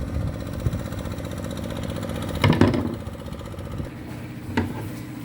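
A steady, low machine hum, like a small engine or motor running, with a few short sharp clicks about two and a half seconds in and again near the end.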